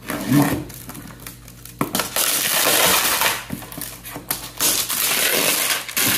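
Plastic wrapping being crinkled and torn off a newly unboxed cordless polisher, a dense crackling rustle that starts abruptly about two seconds in.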